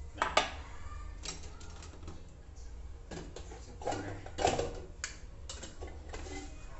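Rice being scooped out of a rice cooker: the scoop clicks and scrapes against the inner pot in a run of short, uneven strokes, with a sharp pair of clicks about a third of a second in.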